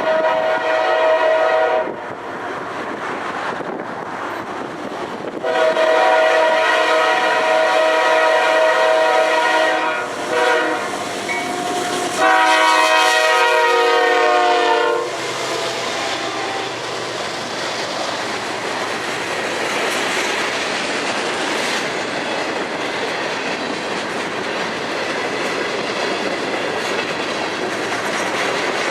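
Locomotive air horn sounding a chord in a long-long-short-long pattern, the usual grade-crossing signal; the last long blast is the loudest. Then the train rolls by with steady wheel-on-rail noise and clickety-clack.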